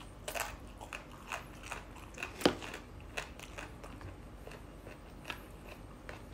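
A person biting and chewing a crunchy Indian trumpet tree pod (ลิ้นฟ้า), heard as short, sharp crunches at irregular intervals, the loudest about two and a half seconds in.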